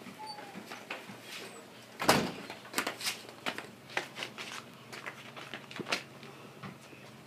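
A series of irregular clicks and knocks, the loudest about two seconds in, with smaller ones every half second or so after it.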